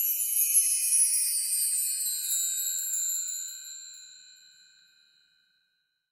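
Shimmering chime sound effect: a cluster of high ringing tones that holds for about three seconds, then fades away and is gone about five seconds in.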